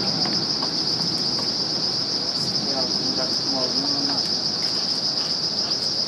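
Steady, high-pitched chorus of night insects, an unbroken shrill drone that holds at one pitch throughout, with faint distant voices underneath.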